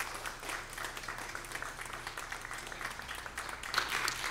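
Church congregation applauding: steady, fairly light clapping from many hands.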